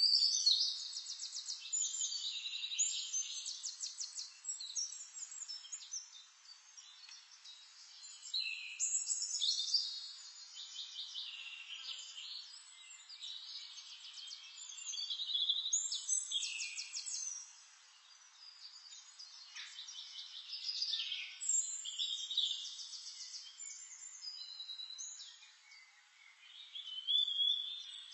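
Songbirds singing: bursts of high, rapid trilled notes and chirps, each phrase lasting a couple of seconds and coming again every few seconds.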